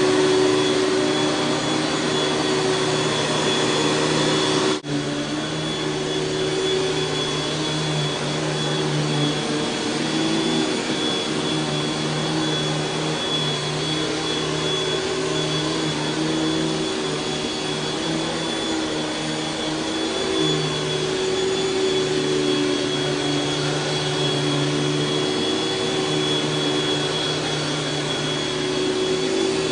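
Panasonic Jet-Flo MC-6210 upright vacuum cleaner running steadily, its motor giving a continuous whine with a steady high tone over a rushing airflow. The sound briefly drops out about five seconds in.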